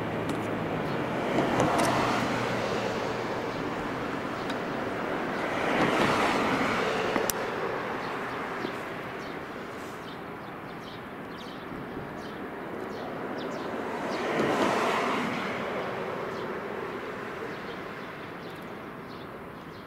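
Road vehicles passing by three times, each a swell and fade of tyre and engine noise, over a steady outdoor traffic hum that sinks slowly toward the end.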